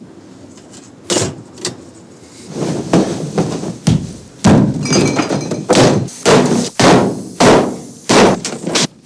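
A rapid series of crashes and bangs, with glass breaking: objects being smashed and thrown about a room. The hits start sparse about a second in and come louder and closer together from about halfway, some ringing briefly.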